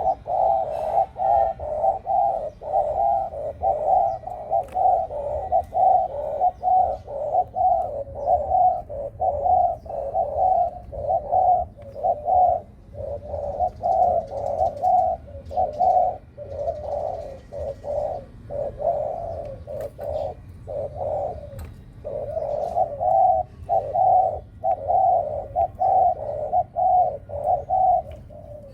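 A dove cooing in quick, repeated coos, several a second with only brief pauses, over and over: a bird worked up and calling hard.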